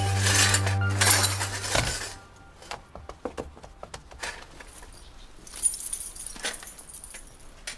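A held low tone of background music ends about two seconds in. It is followed by scattered metallic clinks and jangles as silver picture frames are packed into a holdall, with a brief jangle of keys.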